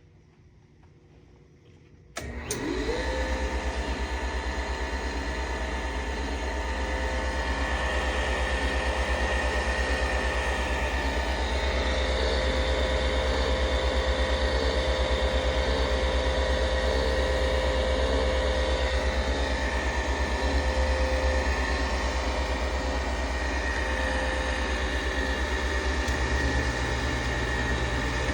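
Sioux 685L valve refacer grinder switched on about two seconds in: its electric motor spins up with a brief rising whine, then runs steadily with a steady hum.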